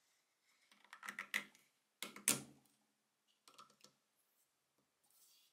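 Faint clicks and clacks of a plastic toothed pulley and its rubber timing belt being handled and fitted by hand, in a few short clusters, the loudest a sharp knock about two seconds in.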